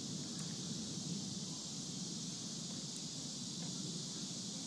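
Steady outdoor storm ambience: wind moving through the trees, with a low continuous rumble underneath and a steady high hiss on top.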